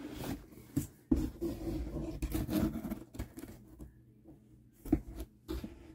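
Cardboard box lid being lifted off and handled, scraping and rubbing with a few sharp knocks, the loudest about a second in and another near the fifth second.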